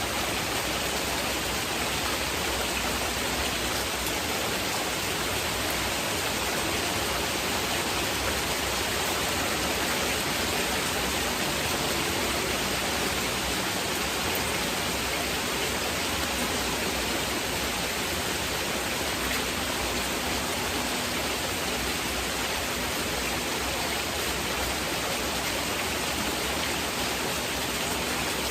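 Steady heavy rain falling in an even, unbroken hiss.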